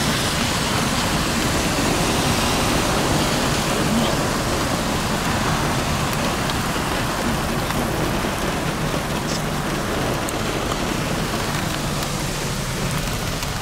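Heavy rain pouring in a storm: a dense, steady hiss with no breaks.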